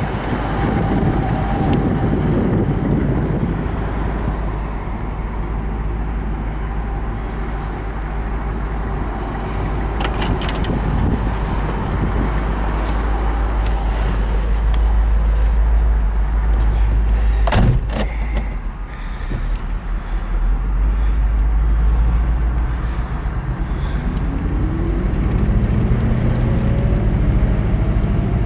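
1960 Cadillac Fleetwood Sixty Special's 390 V8 running steadily, with a sharp knock about two thirds through. Near the end the engine note climbs steadily as the car pulls away and accelerates.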